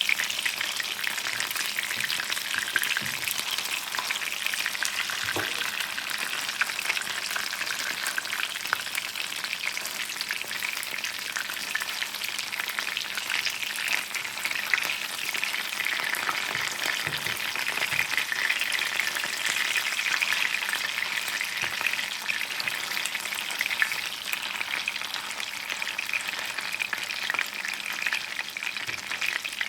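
Food sizzling and crackling steadily in a hot frying pan, with a few faint knocks along the way.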